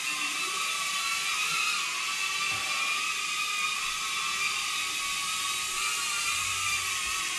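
Small BetaFPV Cetus Pro FPV drone flying, its motors and propellers giving a steady high whine whose pitch wavers slightly with the throttle.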